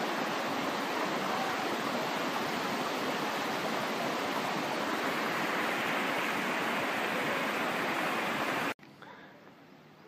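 Steady rushing and splashing of water falling down a rock face, a small mountain waterfall, cutting off suddenly about nine seconds in to a faint outdoor background.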